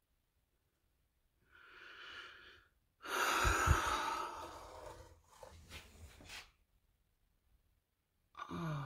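A woman's soft breathy sigh, then a louder exhale with a low bump about three and a half seconds in, followed by rustling as boxes and crates are handled. Her voice starts near the end.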